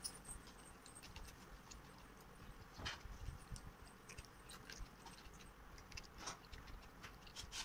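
Faint eating sounds: fingers squishing and mixing rice on a plate, and chewing, heard as scattered soft wet clicks over a quiet background.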